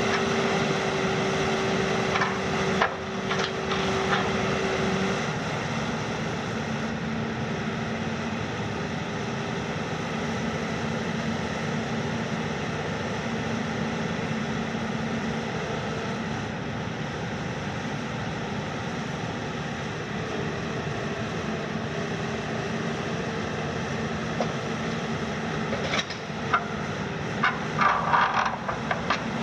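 Hitachi KMC 380 S long-front demolition excavator running steadily, its engine and hydraulics making a continuous drone with a held tone that stops about five seconds in. Near the end come several sharp cracks and clatters as the building's structure is broken.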